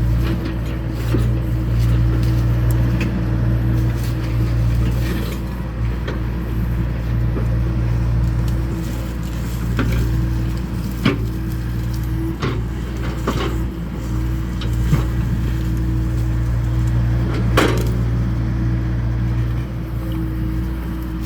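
John Deere excavator's diesel engine running steadily under work, with a steady hum, and scattered sharp knocks and cracks.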